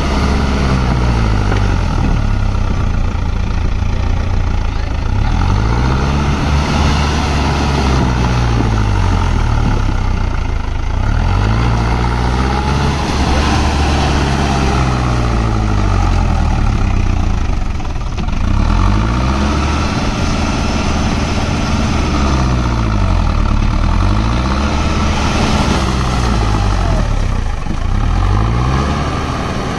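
Mahindra Arjun Novo 605 DI-i 4WD tractor's diesel engine running loud and under load, its engine speed rising and falling again and again as the tractor pulls its rotavator through deep mud and up the field bank.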